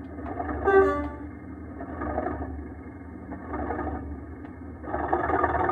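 Sound decoder of an OO gauge Class 37/4 model locomotive playing its English Electric diesel engine sound through the model's small speaker, being given a bit of thrash before shutdown. A brief pitched sound comes about a second in, and the engine sound swells and grows louder near the end.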